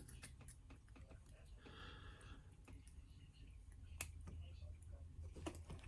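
Faint, scattered small clicks and ticks of tweezers working the pin tumblers out of a padlock's core, with one sharper click about four seconds in.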